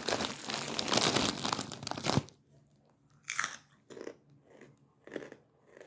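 Chip bag of hot Cheetos rustling and crinkling loudly, cutting off about two seconds in. Then come a few separate crunches of the chips being chewed, about a second apart.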